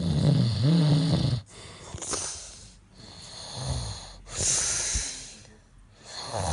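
A person snoring: a loud, low, pitched snore in the first second and a half, then several breathy breaths, and another low snore starting near the end.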